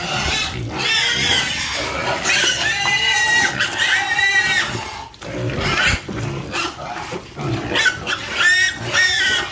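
Pigs squealing over and over: high-pitched calls that rise and fall in pitch and overlap one another, with short breaks about halfway through.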